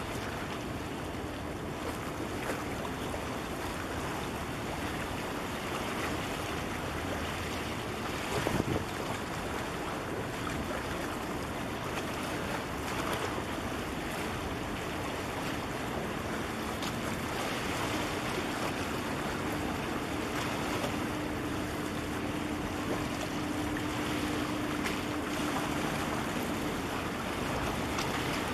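Wind on the microphone and harbour water washing against breakwater rocks as a large container ship passes, with a steady low hum from the ship that comes and goes, strongest in the second half. A brief gusty thump about eight seconds in.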